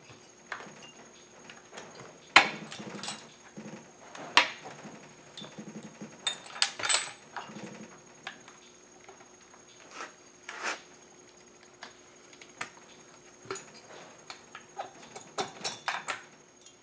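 Hand tools clinking and knocking on a partly stripped chainsaw during disassembly, irregular metallic clicks and clatter with the sharpest knocks about two and a half and four and a half seconds in, over a faint steady hum.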